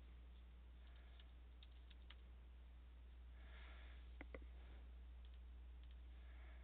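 Faint computer keyboard typing, then two sharper clicks about four seconds in, over a low steady hum.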